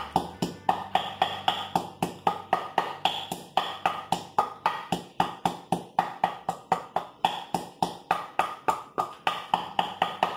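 Wooden pestle pounding a garlic clove in a wooden pilón (mortar), a steady run of sharp wooden knocks at about four strikes a second.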